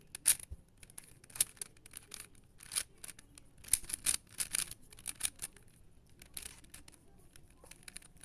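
Plastic puzzle cube being turned by hand: a run of irregular sharp clicks and short scrapes as its layers snap round.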